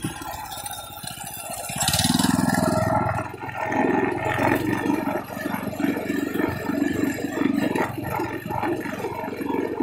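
Trailmaster MB200 minibike's single-cylinder four-stroke engine running under way. It gets much louder about two seconds in, eases briefly a second later, then picks up again.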